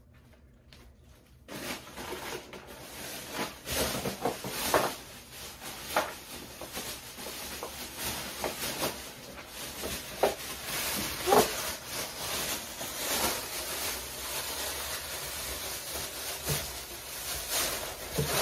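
Rustling and handling noises, with scattered knocks and rubs, as items and plastic bags are packed into a cardboard box.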